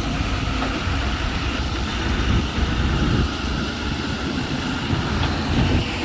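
Heavy diesel mining machinery running, a steady low rumble with no distinct knocks or changes.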